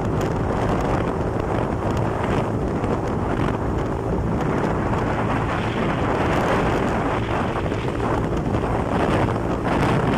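Wind rushing over the microphone on a moving motorcycle, with the motorcycle's engine and road noise running steadily underneath.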